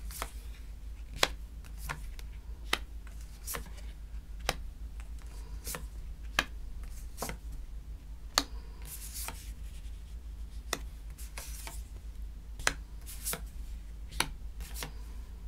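Tarot cards being dealt onto a table one at a time: a string of sharp clicks and taps as each card is set down, with a brief rustle of cards sliding twice near the middle. A steady low hum runs underneath.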